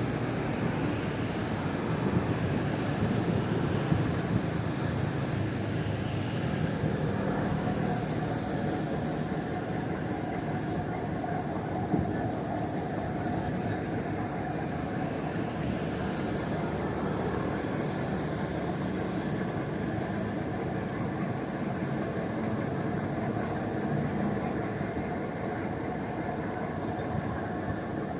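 Steady low drone of a fast ferry's engines, with a few brief knocks.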